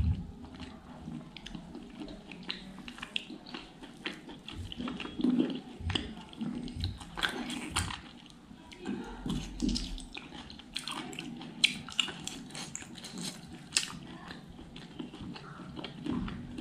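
Close-miked eating sounds: a mouthful of food being chewed with irregular wet mouth clicks and smacks, and fingers pressing and mixing rice on the plate.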